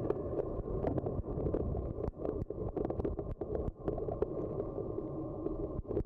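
Creek current heard from an underwater camera: a steady muffled rush with many irregular sharp clicks and ticks.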